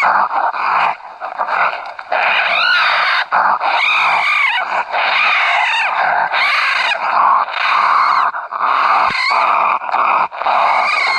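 Raccoon brawl call, the sound of grown raccoons fighting: harsh snarling and growling almost without pause, broken by several squeals that rise and fall in pitch. It is used to bring raccoons in.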